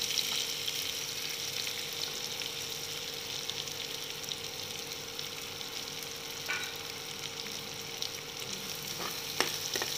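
Sliced onions sizzling in hot oil in a kadai, freshly added: a steady frying hiss, with a couple of faint clicks in the second half.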